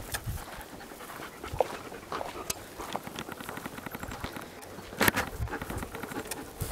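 A dog panting, with footsteps on a dirt trail making irregular small crunches; a louder crunch about five seconds in.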